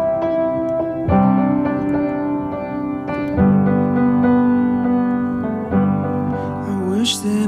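Background music: sustained piano chords, changing about every two seconds.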